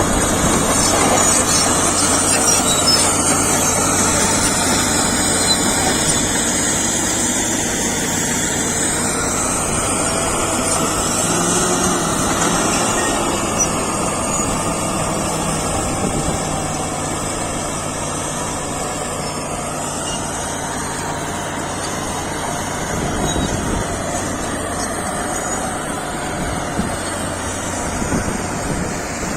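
Caterpillar D7G crawler bulldozer's diesel engine running steadily under a broad mechanical din.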